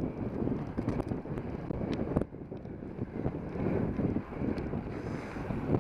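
Wind buffeting the microphone while riding a road bike at speed, a rough uneven rush strongest in the low range, with a few sharp clicks about one and two seconds in.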